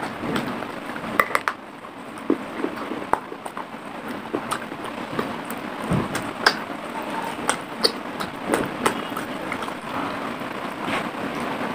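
Close-miked biting and chewing of a piece of clay pot: irregular sharp crackles and crunches of clay breaking between the teeth.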